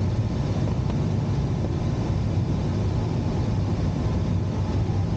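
Steady low drone of air rushing past a glider's canopy in climbing flight, with no changes in level.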